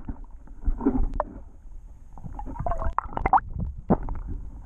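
Muffled underwater gurgling and sloshing picked up by a submerged camera, with scattered clicks and knocks, as a released largemouth bass swims off.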